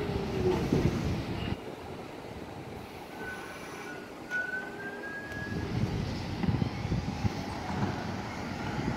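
R46 subway train running along the platform, its rumble cutting off sharply about a second and a half in as it comes to a stop. A thin, high squeal follows briefly, and a low rumbling noise builds again near the end.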